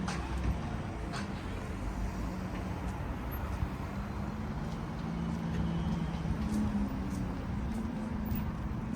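Steady urban background noise with a low drone and a few faint clicks.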